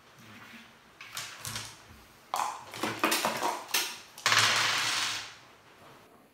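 Dice rattling inside a dice cup as it is shaken, in a run of clattering rattles with the loudest, longest one near the end, and clacks as the cup is brought down on a tabletop.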